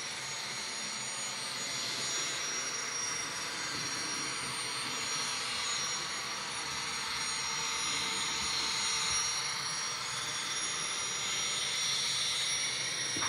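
Steady jet-like rushing whine of a model gas turbine locomotive's sound system, the high whine wavering slowly up and down.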